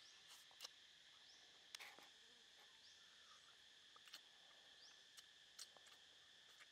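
Faint eating sounds: scattered soft clicks and smacks of a mouth chewing grilled salmon. Under them runs a steady high hum of insects.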